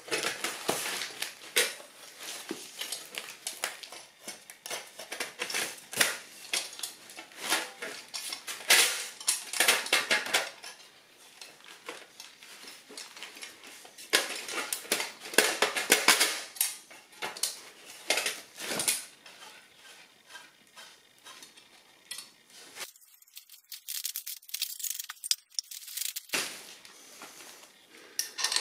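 Drilled timber blocks being handled and pushed onto threaded steel rods: a busy run of clicks, knocks, scrapes and light metallic clinks, in two main spells with sparser clicks after.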